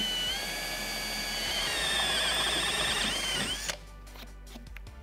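Cordless drill running at speed, boring a hole through a boat's dash for a wiring pass-through: a steady high whine that wavers briefly and then cuts off about three and a half seconds in. Background music plays underneath.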